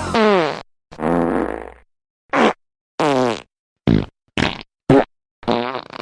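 A string of fart sound effects: about eight short blasts, each sliding down in pitch, with dead silence between them.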